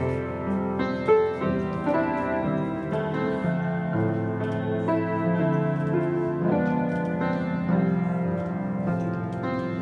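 Keyboard music: slow, sustained piano-like chords that change about once a second.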